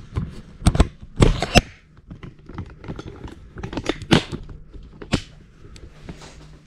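Irregular clicks, knocks and rustles of handling and movement in a small room, loudest in a cluster about a second in and again around four and five seconds in.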